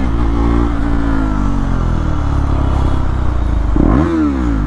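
KTM Duke 390's single-cylinder engine through an SC Project CR-T exhaust while riding, the revs falling away and then holding fairly steady. A little before the end the engine note drops sharply and swings back up, as in a quick gear change, with wind rush throughout.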